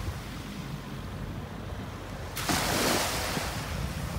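Small waves lapping on the beach, with wind buffeting the microphone and a louder wash of surf about two and a half seconds in. A distant jet ski's engine hums faintly underneath.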